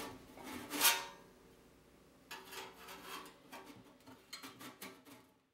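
Sheet-metal stovepipe parts of a homemade stainless-steel wood stove being handled: a loud rustle about a second in, then about three seconds of metal scraping and rubbing with light clinks.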